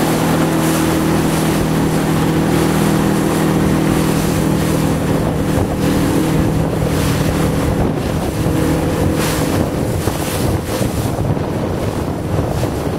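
Motorboat engine running steadily, then easing off and fading about halfway through, with wind buffeting the microphone and water washing past the hull.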